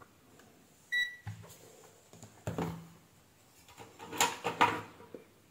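A single short electronic beep from a digital multimeter about a second in, as the meter is switched off, followed by a few light clicks and knocks of handling, the loudest two just past four seconds.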